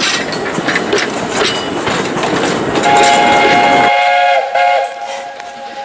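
Narrow-gauge railway carriages rolling past with rhythmic wheel clatter over the rail joints, then a steam locomotive's whistle sounding about three seconds in: one long chord-like blast, the loudest sound here, with a brief break near the end as the carriage noise cuts away.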